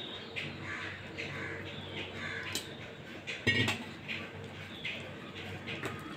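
Steel spoon stirring and scraping thick gram-flour batter against a stainless steel bowl, with one louder clink about halfway through. A bird calls repeatedly in the background.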